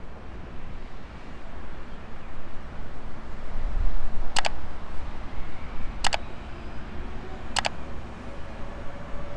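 Steady low rumble of open-air background noise, broken by three sharp clicks about a second and a half apart. Near the end a faint tone begins, rising a little, as a train approaches.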